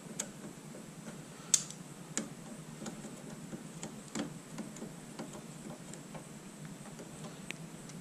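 Scattered small metallic clicks and taps from a chrome motorcycle foot peg and its mounting hardware being handled and fitted with pliers; the sharpest click comes about a second and a half in.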